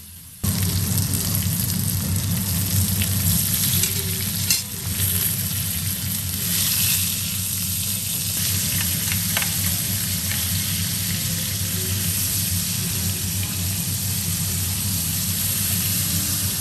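Food sizzling in hot oil in a frying pan, starting suddenly about half a second in, with a few light clicks of a utensil against the pan.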